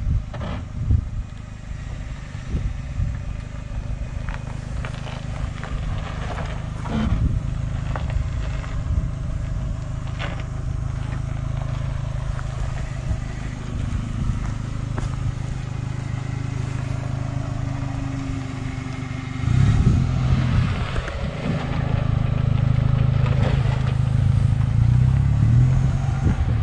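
An off-road 4x4's engine runs at low revs as the vehicle crawls over a rocky trail, with occasional knocks and scrapes from the stones. About twenty seconds in the engine gets louder, working harder under more throttle.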